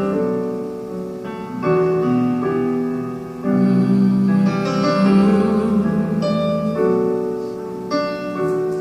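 Slow ballad's instrumental passage between sung lines, led by piano: held chords changing about every second or so.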